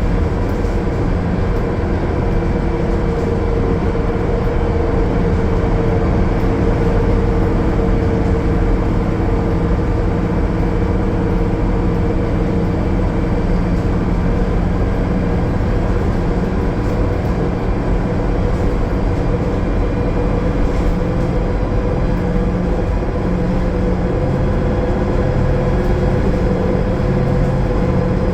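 The Cummins ISL9 diesel engine of a 2020 Gillig Low Floor transit bus running steadily at highway cruise, mixed with road and driveline noise.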